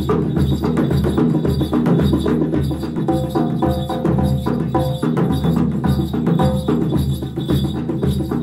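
Background music with a steady drum beat and hand percussion; a few held melody notes come in about three seconds in.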